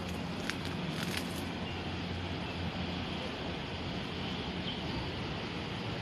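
Steady low background rumble and hiss with a faint low hum, and a few light clicks in the first second and a half.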